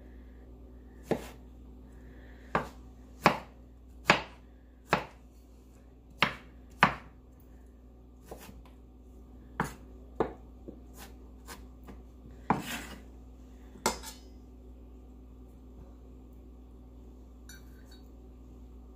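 Chef's knife chopping strawberries on a wooden cutting board: a string of sharp, irregular knocks of the blade striking the board, roughly one a second, stopping about three-quarters of the way through.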